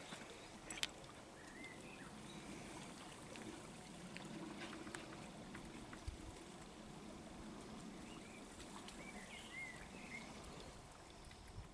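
Faint, steady lapping of calm sea water against shoreline rocks, with a few short bird chirps about a second and a half in and again near the end.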